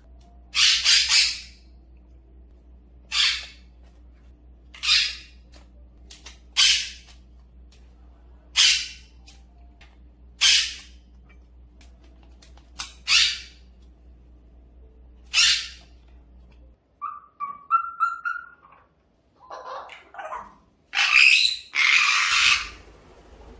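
A parrot gives short, loud, harsh contact calls about every two seconds, the call a parrot makes when looking for its owner. Near the end an African grey parrot gives a few brief whistled notes, then screams loudly twice while flapping its wings.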